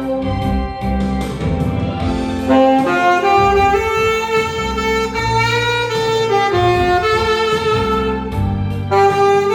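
Tenor saxophone playing a slow, legato melody of long held notes over a recorded backing accompaniment, growing louder about two and a half seconds in.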